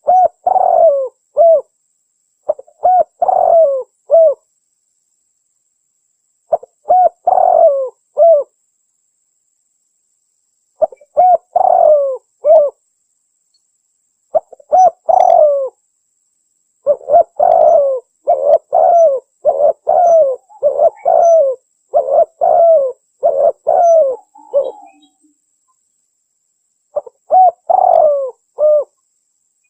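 Spotted dove (tekukur) cooing in the Javanese anggunan style: repeated phrases of several falling coo notes, with short silent gaps between them and a long unbroken run of phrases in the middle.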